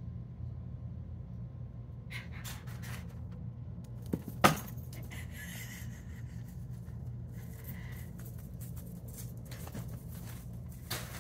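Kittens playing with a toy mouse on a tile floor: scattered light clicks, rustles and small clatters, with a sharp knock about four seconds in, over a steady low hum.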